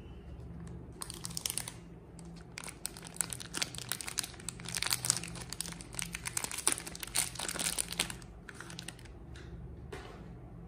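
Packaging of a Palmolive soap bar crinkled and torn open by hand. Dense crackling starts about a second in and is loudest in the middle, then thins to a few crinkles near the end as the bar comes free.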